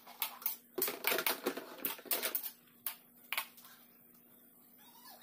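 Metal spatula scraping and clattering against an aluminium wok as chicken pieces are stir-fried: a quick run of strokes for about two and a half seconds, then two single knocks.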